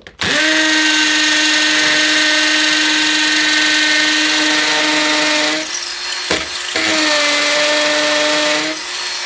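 Ryobi cordless drill on hammer action, boring a 6mm masonry bit into solid brick. It runs at one steady pitch, stops for about a second just past halfway, then drills on again before easing off near the end.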